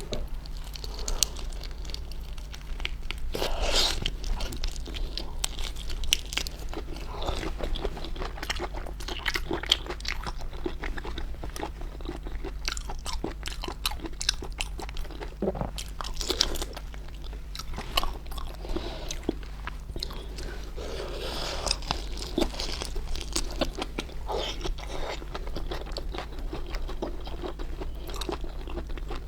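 Close-miked eating sounds of stuffed prawns: irregular crunching bites and wet chewing, over a steady low hum.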